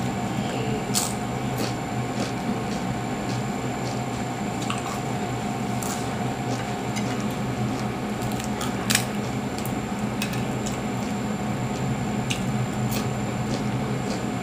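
Eating a crispy ukoy fritter: wet chewing and mouth sounds, with scattered sharp crunches and cracks as pieces are torn off and bitten, the sharpest about nine seconds in. An electric fan hums steadily underneath.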